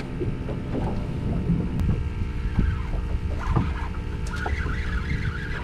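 Wind buffeting the microphone aboard a small fishing boat, over a steady low hum, with a few light clicks about halfway through and faint high chirping in the second half.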